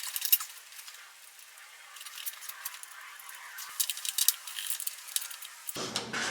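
Light metallic clicks and clinks of hand tools and small hardware being handled, coming in irregular clusters with quieter stretches between them.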